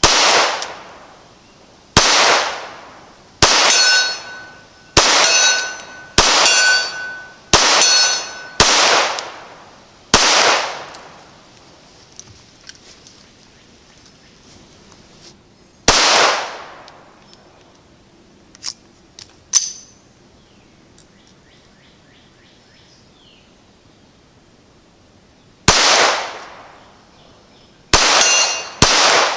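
Browning Buck Mark .22 LR pistol firing about a dozen sharp shots, one to two seconds apart, with a long pause in the middle. On several of them a 12-inch AR500 steel gong 50 yards off rings back with a clear high ring, marking a hit.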